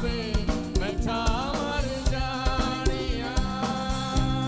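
Singers performing a Punjabi song into microphones over backing music with a steady drum beat; a wavering, ornamented sung phrase in the first two seconds gives way to held notes.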